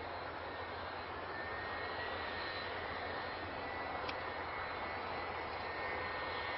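Steady hiss with a low hum: the background noise of an air traffic control radio recording between transmissions.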